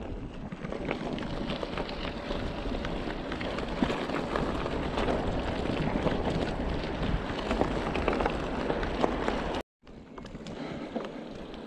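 E-bike tyres rolling over a rough track, a steady crunching noise with many small clicks and rattles, and wind on the microphone. It cuts out abruptly near the end and returns quieter.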